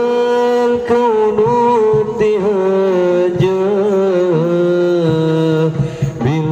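A man singing shalawat, Islamic devotional praise, through a microphone, drawing out long notes with ornamented bends and glides over a steady low accompaniment.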